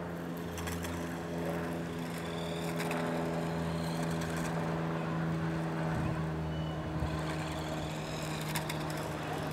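Motor of a radio-controlled model running with a steady hum that holds one unchanging pitch.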